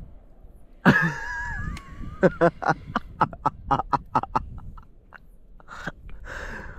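Man laughing hard: a high wavering squeal, then a rapid run of laughs, about four a second, tailing off into a few breathy laughs near the end.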